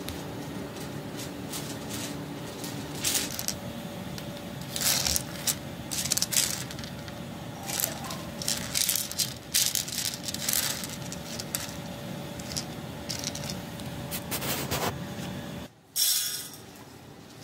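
Dried red kidney beans being sorted by hand on a plate, clicking and rattling in short, irregular bursts as they are pushed and slid about.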